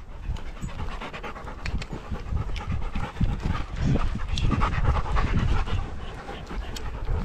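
A dog panting close to the microphone, quick breath after breath.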